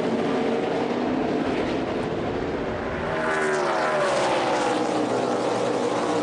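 NASCAR stock cars' V8 engines running at race speed. About three seconds in, one car passes close, its engine note falling in pitch as it goes by.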